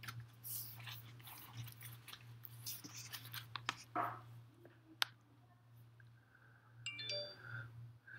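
Faint clicks and small handling noises over a low steady hum, with one sharp click about five seconds in. Near the end comes a short electronic chime of several steady tones.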